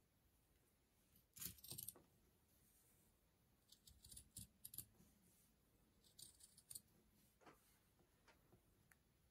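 Scissors cutting through woven fabric: quiet groups of crisp snips, the loudest about one and a half seconds in, then more around four and six and a half seconds.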